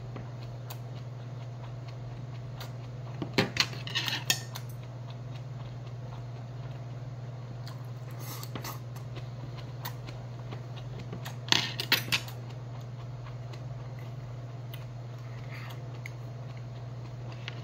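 Metal spoon and chopsticks clinking against a stainless-steel rice bowl and side-dish bowls while eating, in several short bursts of clicks a few seconds apart, over a steady low hum.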